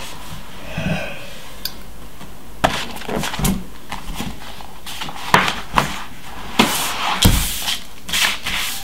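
Papers and a book being handled on a wooden desk: a run of irregular sharp rustles, taps and knocks over a steady hiss. A short vocal groan comes about a second in.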